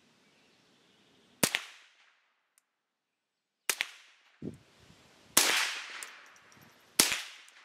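Ruger 10/22 semi-automatic .22 LR rifle firing single aimed shots, four sharp cracks spaced about one and a half to two seconds apart, each followed by a short fading echo.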